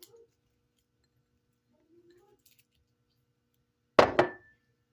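Two sharp knocks in quick succession, a hard object striking something hard, with a short ringing after them.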